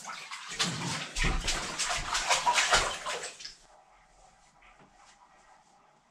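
Water splashing and sloshing in a bathtub in quick irregular splashes, cutting off suddenly about three and a half seconds in, followed by faint room tone.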